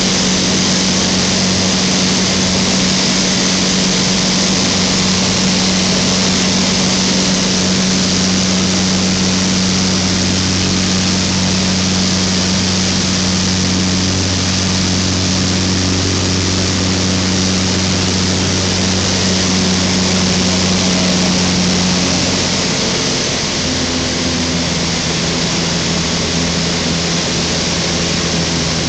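Thruster T600N microlight's engine and propeller running steadily in flight, heard from the cockpit with a constant rush of wind. About three-quarters of the way through, the engine note drops a little in pitch and loudness.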